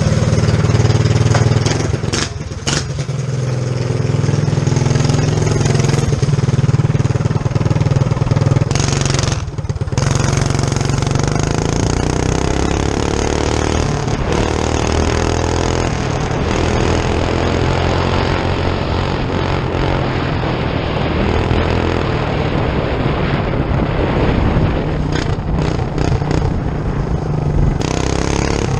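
Predator 212cc single-cylinder OHV engine on a Coleman mini bike running hard under load while riding. Its pitch climbs several times as the throttle is opened and eased, with a brief drop in level about ten seconds in.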